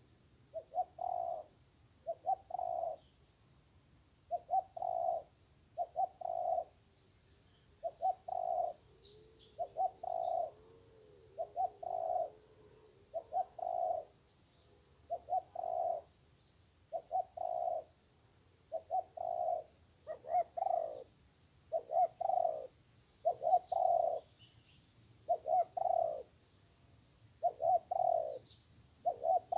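Spotted doves cooing: a steady run of low, round coos, about one a second and often grouped in twos and threes, with faint small-bird chirps higher up.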